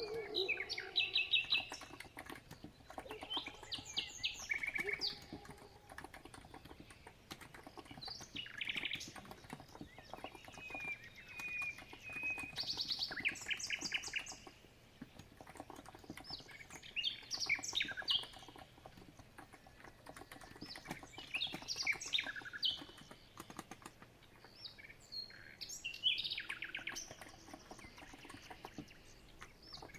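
Songbirds chirping in short clusters of rapid notes every few seconds, over soft, continuous typing on a COX Empress capacitive keyboard.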